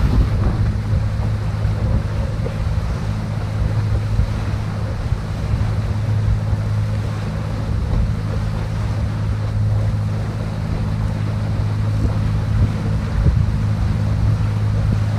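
Skate 15 sailing skiff planing on a broad reach: water rushes along the hull and hisses in the wake, with wind buffeting the microphone. A steady low hum runs under it.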